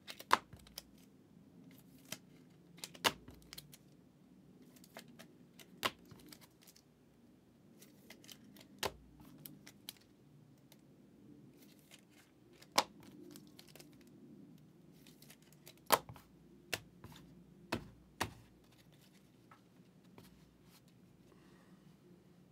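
Trading cards and their plastic holders and wrappers being handled on a table: scattered sharp clicks and light rustling, about a dozen separate clicks, over a faint low hum.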